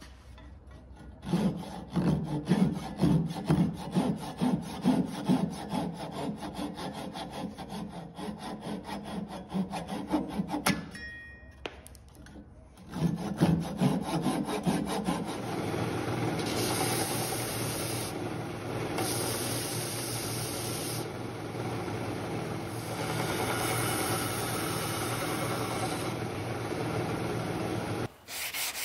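Hand saw, a Japanese-style pull saw, cutting black walnut in rhythmic strokes, with a short pause partway through. This gives way to an electric belt sander running steadily, its sound brightening in stretches as the wood is pressed to the belt.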